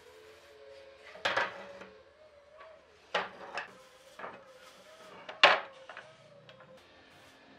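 Pine boards knocking and clattering on a wooden workbench as they are set down and shifted into place: a handful of separate knocks, the loudest about five and a half seconds in, over a faint steady hum.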